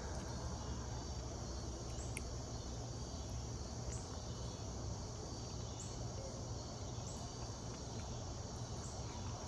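Steady insect chorus, a continuous high trill without pause, over a low steady hum.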